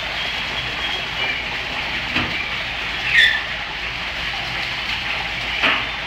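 Steady rush of water falling over an artificial rock waterfall into its pool. A couple of faint knocks, and a short high squeak falling in pitch about three seconds in.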